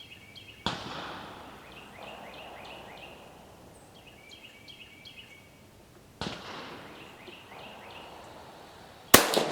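Three rifle shots, each with a fading echo: one about a second in, one about six seconds in, and a much louder one near the end, fired from an Italian Vetterli 1870/87/15 rifle with a light cast-bullet load. Small birds chirp in short repeated bursts between the shots.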